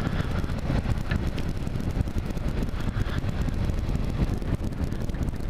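Kawasaki KLR 650's single-cylinder engine running steadily while riding, with wind noise on the microphone.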